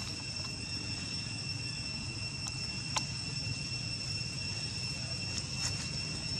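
Steady high insect trilling on two pitches, with a low rumble underneath and a single sharp click about three seconds in.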